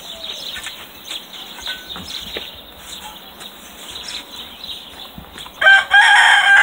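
A rooster crows loudly near the end, a long held call. Before it, only faint scattered chirps.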